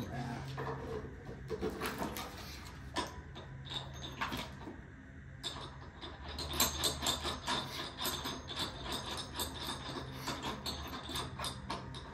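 Rapid metallic clicking from a ratchet wrench working a bolt and washer at the end of a skateboard rail pipe, in irregular runs that are busiest a little past the middle. A faint steady hum runs underneath.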